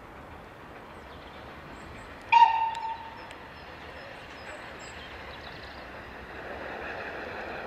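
Distant steam locomotive sounds one short whistle blast about two seconds in. After that, the train's running noise grows louder as it approaches. Faint birdsong chirps in the background.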